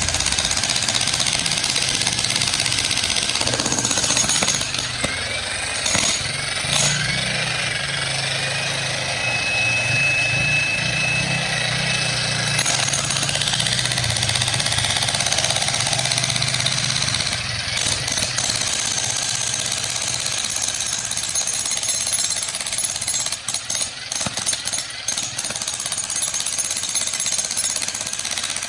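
Jackhammer hammering steadily, breaking up weathered surface limestone. Near the end it stops and starts in short bursts.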